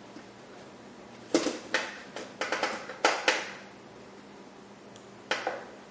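Short, sharp clicks and scrapes of wire strippers and stranded wire against the metal can of a recessed light fixture. There are about seven between one and three and a half seconds in, and two more near the end.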